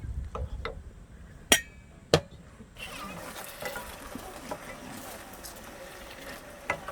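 Cookware clinking during outdoor cooking: a few light clicks, then two sharp ringing clinks about a second and a half and two seconds in. After that, a steady hiss with faint voices.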